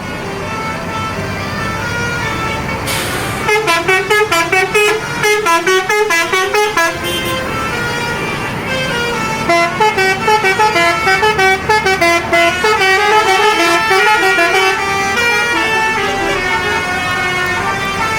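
Bus telolet horn, a multi-trumpet air horn, playing a sholawat melody in quick separate notes over a running engine. The tune starts about three and a half seconds in, just after a short hiss of air, pauses briefly around eight seconds, then plays on.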